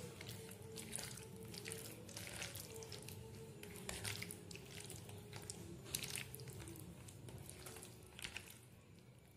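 Faint, soft wet squelches of a bare hand mixing raw prawns with yogurt and a thick mustard, poppy seed and coconut paste in a steel tiffin box, with irregular small splats and clicks every half second or so.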